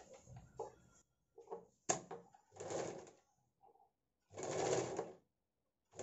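Electric sewing machine stitching in two short runs, about two and a half and four and a half seconds in. Before them come light clicks and fabric handling, with one sharp click about two seconds in.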